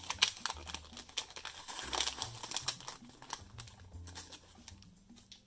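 Wrapper of a basketball sticker pack crinkling and tearing as it is ripped open by hand. A rapid scatter of crackles thins out toward the end.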